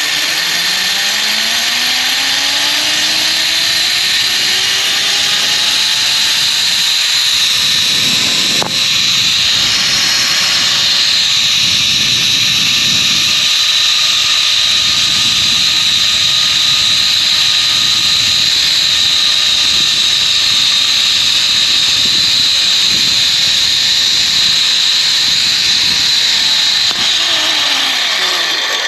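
Zipline trolley pulleys running along a steel cable: a loud whir whose pitch rises as the rider picks up speed, holds steady, then drops near the end as the trolley slows, over a rushing noise. A single sharp click about nine seconds in.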